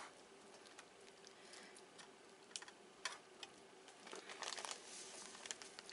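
Faint rustling and small crackles of brown sugar being pressed and sprinkled by fingers into halved acorn squash, thickening into a denser rustle about four seconds in.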